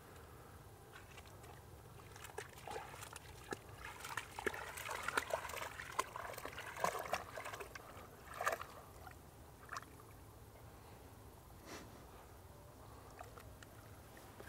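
Weimaraner wading through shallow water to retrieve a shot nutria, sloshing and splashing irregularly. The splashes are busiest in the middle and thin out near the end.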